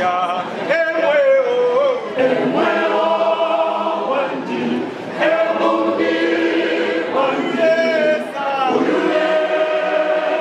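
Mixed church choir of men and women singing together, phrases of held notes with short breaks between them.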